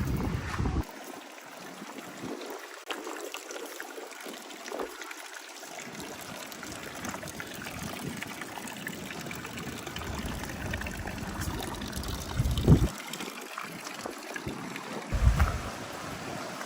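Steady rain falling, with water trickling and running, heard as an even hiss. Two brief low thumps come near the end.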